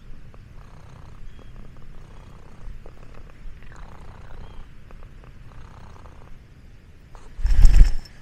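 Domestic cat purring steadily, close by. Near the end there is a brief loud bump.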